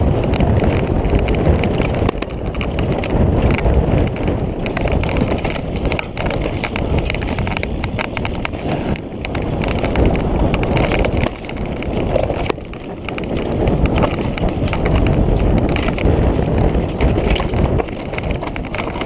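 Orbea mountain bike descending rough trail at speed: tyres crunching over rocks and dry leaves and the bike clattering with a dense, irregular rattle of knocks, over a heavy low rumble.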